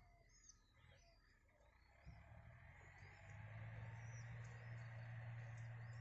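Faint, scattered high chirps of small birds over a low hum that is weak for the first two seconds and steadier after.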